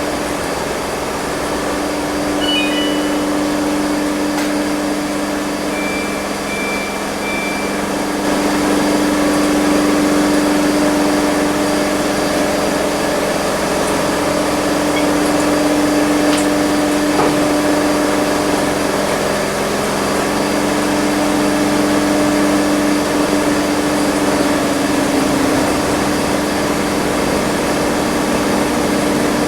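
Front-load washing machine in its spin cycle: the drum spinning at a steady speed, a steady hum with a held tone over the rush of the spin.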